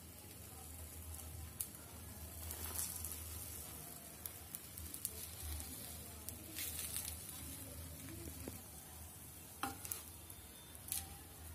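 Bread omelette sizzling in oil in a nonstick frying pan, a steady hiss, with a few sharp clicks and scrapes of a slotted metal spatula against the pan as it is turned.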